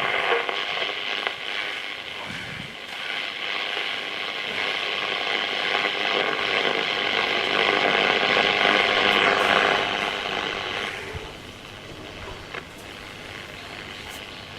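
Philips Valiant 2 valve radio's loudspeaker giving out shortwave static between stations, a steady hiss that swells and then drops lower about eleven seconds in.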